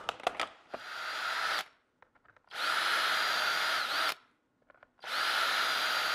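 Power drill with a 3 mm self-centering bit boring shelf-pin holes through a template jig: three short runs, each a steady whine that drops in pitch as it stops, with a few sharp clicks before the first.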